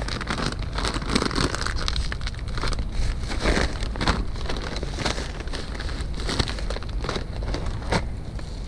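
Plastic trash bags and packaging rustling and crackling as items are rummaged through in a dumpster, in an irregular run of crinkles and small knocks over a steady low hum.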